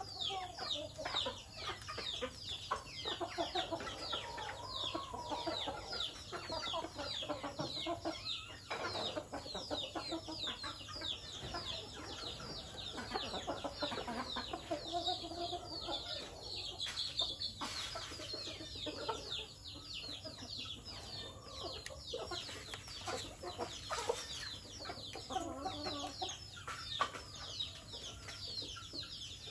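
A flock of domestic chickens clucking while they feed, over a constant stream of high, quick, falling peeps. There are a couple of brief sharp sounds partway through.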